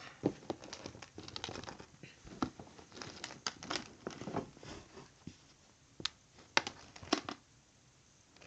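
Hands rummaging through a container of squishy toys: irregular plastic rustling and crinkling with scattered sharp clicks and knocks.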